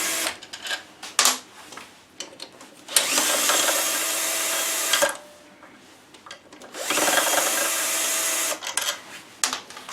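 Cordless drill-driver running in two steady bursts of about two seconds each, backing out the screws of a scooter's variomatic cover, with clicks and light knocks in between as screws and tool are handled.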